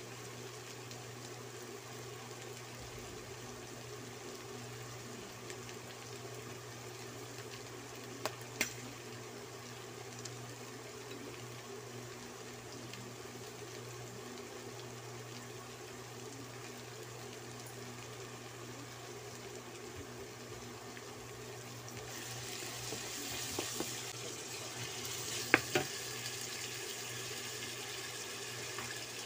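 Chicken gizzards, onion and garlic sautéing in a nonstick wok, a gentle steady sizzle over a low hum. Near the end the sizzle grows louder as a wooden spoon stirs the pan, with a couple of sharp clacks of the spoon against the wok.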